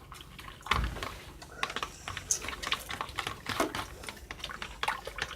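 Homemade glue slime being squeezed and kneaded by hand: irregular small wet clicks and pops, with one dull thump about a second in.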